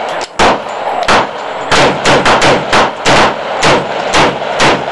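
M4-style AR-15 rifle fired in rapid semi-automatic succession, about eleven loud shots in under five seconds, quickening to about four a second near the middle.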